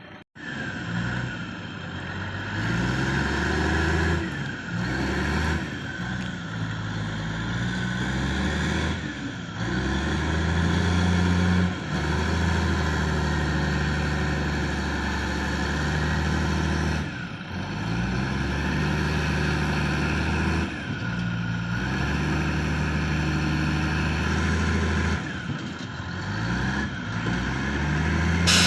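Heavy diesel engine working under load, its revs stepping up and down again and again, each rise held for one to five seconds before dropping back.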